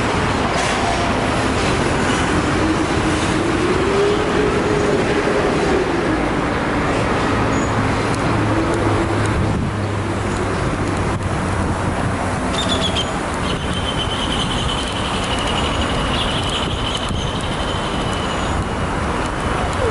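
City street traffic running steadily: engines and tyres, with one vehicle's engine note rising and falling a few seconds in and a thin high whine through the second half.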